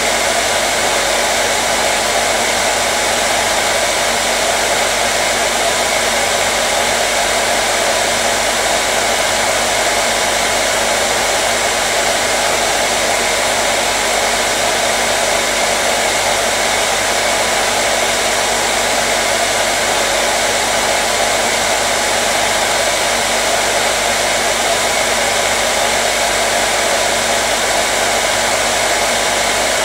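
Hair dryer running continuously at a steady speed, an even rushing whoosh of blown air with a faint motor hum, used as white noise to soothe a colicky baby.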